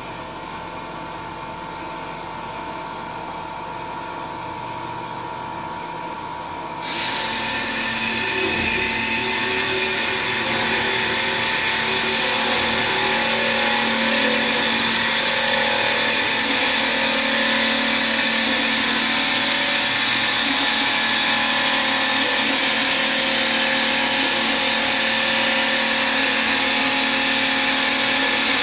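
Bomar metal-cutting band saw running with a steady hum. About seven seconds in, a loud, steady high-pitched hiss sets in suddenly, as the blade starts cutting into metal.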